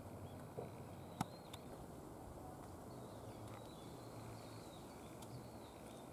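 Faint outdoor ambience: a steady low rumble with a few faint, high bird chirps, and two sharp clicks a little over a second in.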